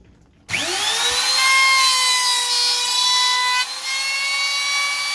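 Compact trim router switched on about half a second in, its motor spinning up with a quickly rising whine to a steady high whine as it routes a pocket for a bowtie inlay in a block of wood. The pitch shifts slightly about three and a half seconds in.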